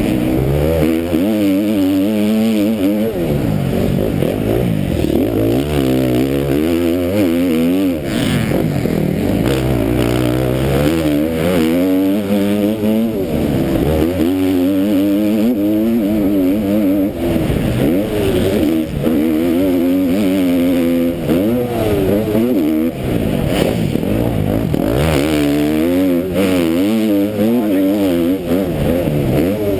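KTM MX2 motocross bike's engine at racing speed, revving up and dropping back again and again as the rider opens and closes the throttle and shifts through the gears, heard from a helmet-mounted camera with a steady rush of wind noise.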